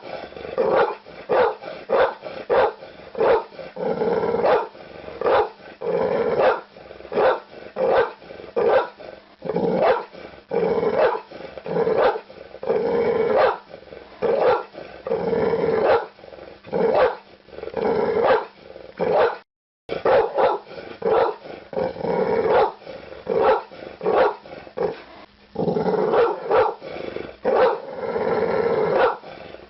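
Pit bull barking repeatedly, about two barks a second. The sound cuts out completely for a moment about two-thirds of the way through, then the barking resumes.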